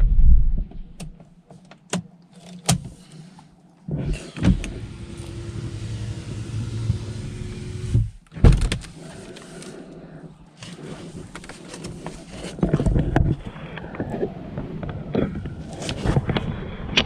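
A 2002 Volvo V70's 2.4-litre five-cylinder engine is switched off at idle and its running stops within the first half-second. Clicks and knocks from the car follow, then a steady whir for about four seconds, a loud knock about eight and a half seconds in, and more scattered knocks.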